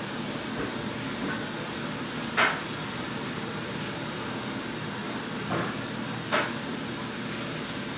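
Steady outdoor background noise with three short, sharp knocks; the loudest comes about two and a half seconds in, and two weaker ones follow close together near the end.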